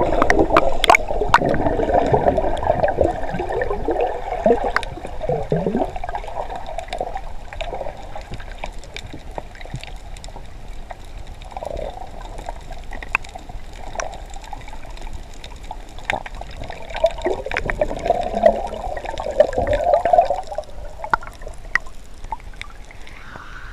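Water gurgling and bubbling as heard by a camera underwater, heaviest in the first few seconds and again about three-quarters of the way through, with scattered sharp clicks.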